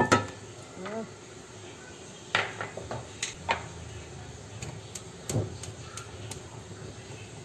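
Cooking utensil knocking and clinking against a pan and dishes while the sambal is prepared for sautéing: a few sharp strikes about two to three and a half seconds in, a heavier knock a little past five seconds, and light ticks around it.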